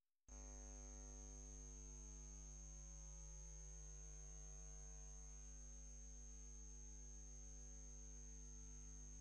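Faint electrical mains hum: a steady low buzz with a thin high-pitched whine above it, cutting in abruptly out of dead silence about a third of a second in.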